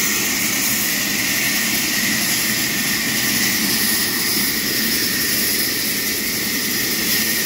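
Trolley-carriage band sawmill running steadily as it cuts wood, a constant mechanical noise that does not rise or fall.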